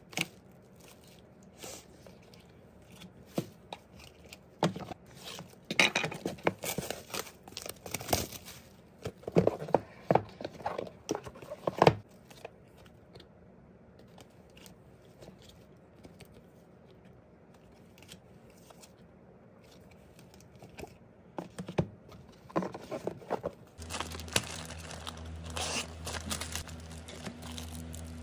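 Photocards and packaging handled close up: scattered rustling, crinkling and tearing in short bursts, busiest in the first half. Near the end a steady low hum comes in under denser rustling of a plastic bag.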